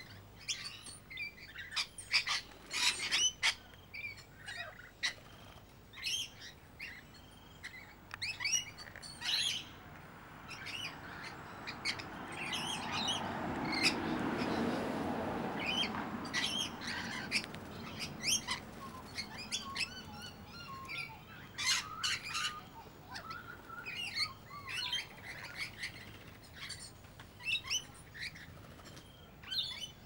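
Backyard birds, rainbow lorikeets and noisy miners among them, making many short chirps and squawks. A low rushing noise swells and fades over several seconds in the middle.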